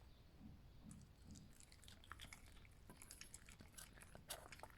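Faint, scattered wet clicks of a fox chewing its food, most of them in the second half.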